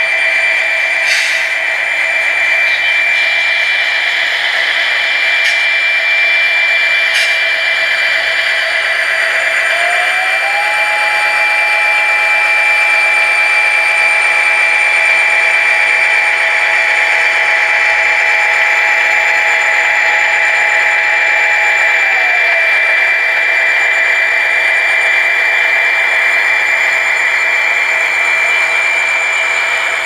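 Model SD40-2 diesel locomotives' digital sound decoders playing the diesel engine sound, with a steady high whine. About ten seconds in, a second tone climbs in pitch and holds, then drops back down near the end of the middle stretch.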